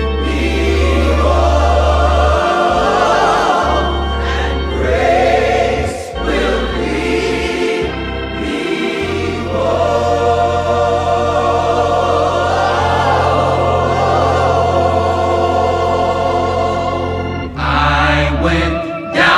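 Gospel choir singing in harmony over held bass notes.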